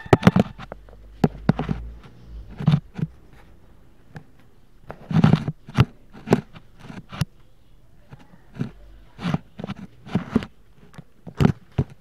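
Two dogs play-fighting close to the microphone: irregular scuffling, knocks and snapping of jaws, in uneven clusters with gaps between.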